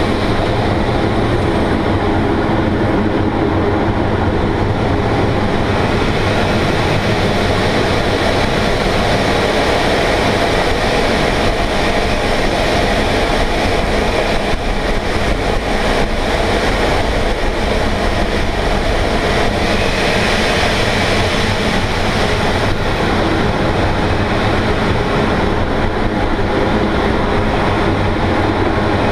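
Loud, steady rush of air over the canopy of an unpowered MDM-1 Fox aerobatic glider, heard from inside the cockpit in flight.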